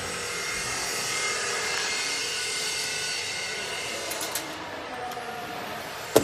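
CNC oscillating knife cutter running as its head works over corrugated cardboard: a steady mechanical hiss with faint high whines. A few light clicks come about four seconds in, and a single sharp click, the loudest sound, comes at the very end.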